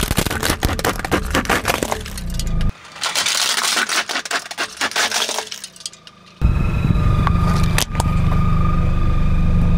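Hard plastic toy truck cracking and crunching under a car tyre, a dense run of sharp snaps over the first five seconds or so. A steady low rumble runs under the start, cuts off abruptly after a few seconds and comes back near the end.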